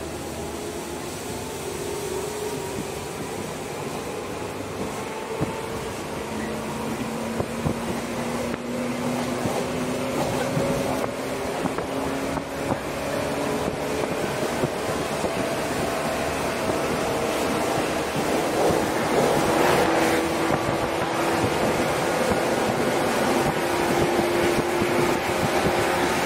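Shinano Railway Series 115 electric train heard from inside its motor car while accelerating away from a station: the DC traction motors and gears whine, rising steadily in pitch and growing louder over the running noise of wheels on rail.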